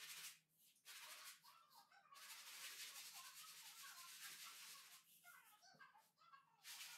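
Faint, scratchy hiss of fine sandpaper rubbed by hand in quick strokes over dried filler patches on a painted wall. It stops briefly about half a second in and for about a second and a half near the end.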